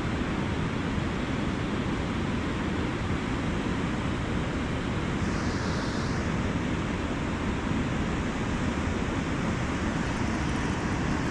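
Steady rushing noise of wind on the microphone and flowing river water, unchanging throughout.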